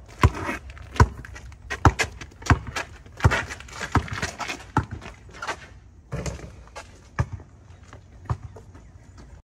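Basketball dribbled on a pebbled concrete driveway: a sharp bounce about every three-quarters of a second, spacing out to a few scattered bounces in the last few seconds.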